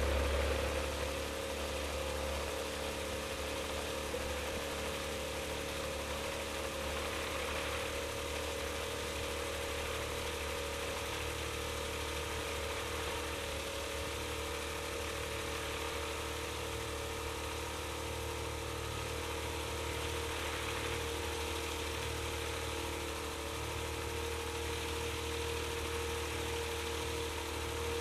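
Avid kit-built light aircraft's engine and propeller idling steadily with the plane standing still.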